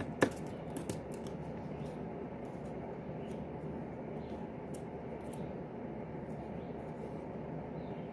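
Scissors being handled and snipping: one sharp click about a quarter second in, then a few fainter clicks and light ticks, over a steady low background noise.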